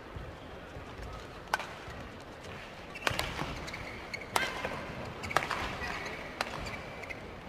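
Badminton rackets striking a shuttlecock in a rally: about five sharp hits, roughly a second apart and coming a little faster toward the end, with short high squeaks of shoes on the court between them.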